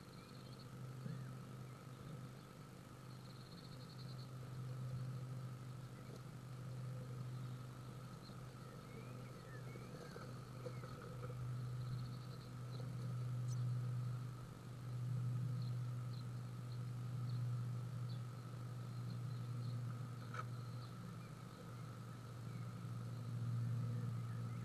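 Steady low electrical hum with a faint higher tone, picked up inside a nest box. Faint, high, short cheeps from the nestling tits come and go over it.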